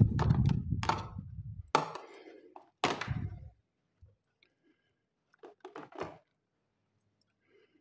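Loud handling knocks and clatter as a plastic tub and a halved durian husk are moved on a glass tabletop, loudest in the first two seconds, with sharp knocks about two and three seconds in. Softer scraping follows near six seconds as a metal spoon scoops out the durian flesh.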